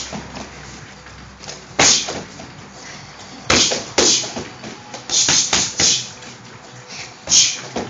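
Kicks and gloved punches landing on a free-standing punching bag: about eight sharp smacks, spaced a second or two apart at first, then a quick run of three a little past the middle.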